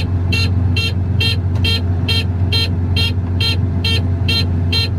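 Harvester cab warning alarm beeping evenly, about two short high-pitched beeps a second, over the steady low hum of the running John Deere 1270E harvester engine. The alarm comes with the machine's 'central greasing system low' warning.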